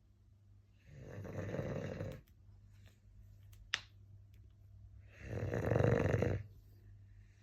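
Shar-pei dog snoring: two long snores about four seconds apart, each lasting a second or so, the second one louder. A short sharp click comes between them.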